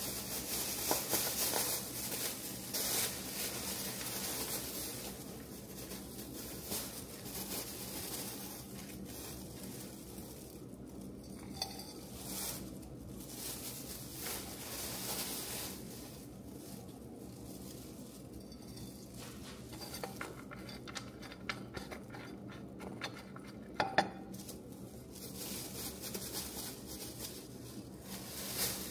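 Kitchen clatter: dishes, pans and cutlery being handled, clinking and knocking now and then, with one sharp clink near the end.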